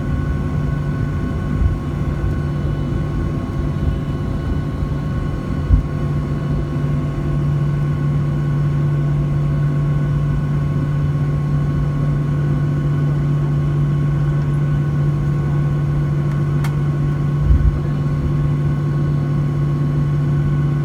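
Boeing 737-800's CFM56-7B turbofan engines running steadily, heard inside the cabin: an even drone with a deep hum and a few thin steady whine tones above it. Two short low thumps sound about six seconds in and near the end.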